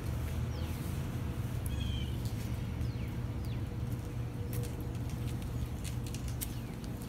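Steady low outdoor background rumble at a railway platform, with a few short, faint high bird chirps in the first three seconds and some light scattered clicks.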